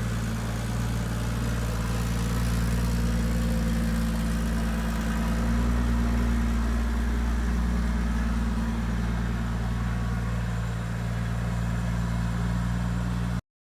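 Turbocharged Ford Barra inline-six engine idling steadily, cutting off suddenly near the end.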